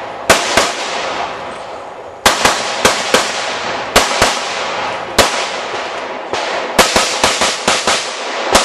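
Rapid pistol fire on a USPSA stage: about fifteen sharp shots, mostly in quick pairs about a third of a second apart, with pauses of a second or more between groups as the shooter moves between targets. Each shot rings briefly.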